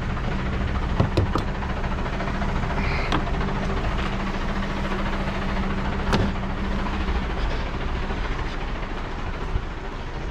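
Heavy diesel truck engine idling steadily, with a few sharp clanks and knocks as ratchet straps and tools are pulled out of a metal side locker.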